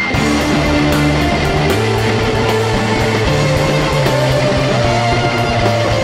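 Rock band playing an instrumental passage live: electric guitar, bass and drums come in loud together right at the start and carry on steadily with no vocals.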